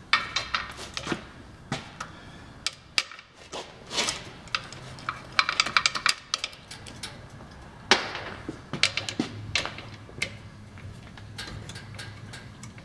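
Speed wrench (hand-cranked brace with a socket) spun to run out the bolts holding the bell housing on a Model A Ford transmission: irregular metallic clicks and clinks of the socket and loosened bolts, coming in clusters.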